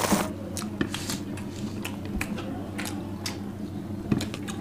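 Eating by hand: fingers mixing rice on steel plates and chewing, with scattered small clicks and soft squishes, over a low steady hum.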